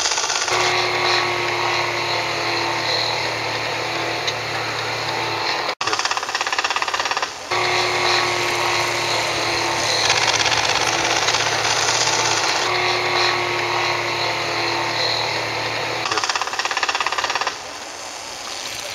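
Small engines of radio-controlled model airplanes running steadily in flight, with a rapid, chattering buzz. The sound breaks off for an instant about six seconds in and is quieter near the end.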